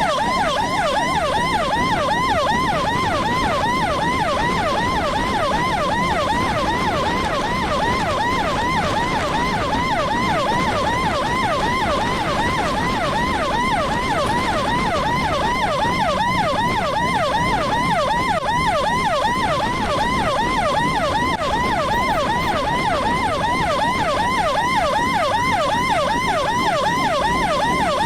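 Electronic emergency siren sounding a fast yelp, quick rising sweeps repeating several times a second without a break, with road and engine noise beneath.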